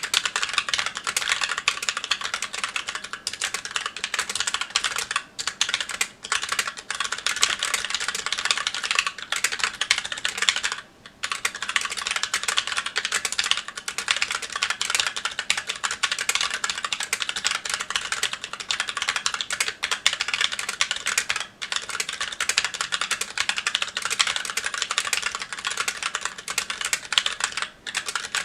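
Fast, continuous typing on a Magicforce 68 mechanical keyboard with stock Gateron Brown tactile switches and GMK keycaps: dense key clacks, pausing briefly a little before the middle and again near the end.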